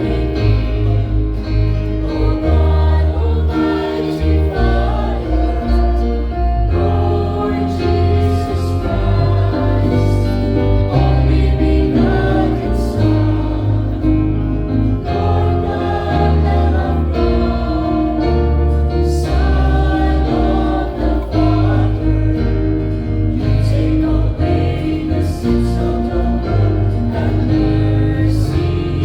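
A church choir singing a hymn with instrumental accompaniment: sustained sung chords over a strong, steady bass.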